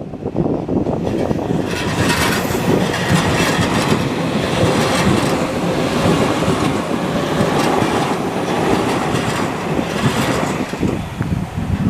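JR Kyushu 305 series electric train passing over a level crossing, its wheels clattering over the rail joints. It builds up about two seconds in and fades away shortly before the end.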